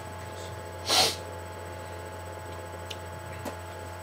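A single sharp sneeze about a second in, the nose irritated by inhaled cinnamon powder, over a steady low electrical hum.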